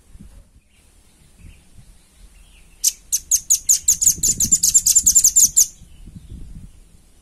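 Velvet-fronted nuthatch giving a fast, high trill of about twenty sharp notes, roughly eight a second, lasting close to three seconds and starting about three seconds in.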